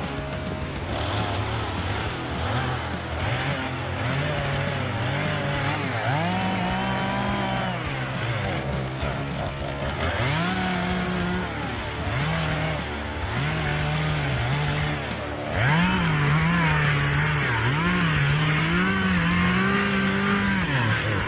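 Chainsaw engine revving up and down again and again, its pitch climbing and dropping with each pull of the throttle. It gets louder and harsher about two-thirds of the way in.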